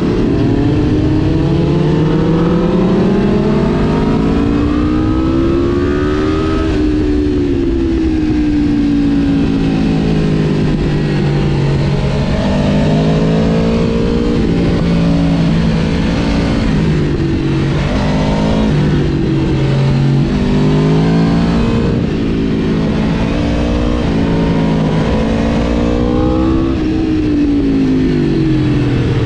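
Aprilia RSV4 Factory's V4 engine heard from the rider's seat, its pitch climbing under acceleration and dropping back several times, with a peak about six seconds in and another near the end, over a steady rush of wind noise.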